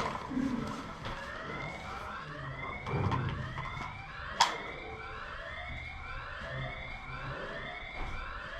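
A siren sounding in repeated rising sweeps, about one a second. A single sharp crack stands out about four and a half seconds in.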